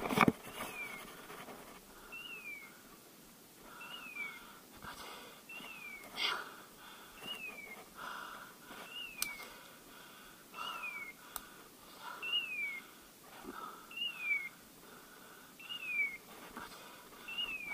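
A dog's beeper collar chirping, one short descending electronic chirp about every second and a half, a fast steady rate typical of point mode. Footsteps rustle through dry leaf litter underneath.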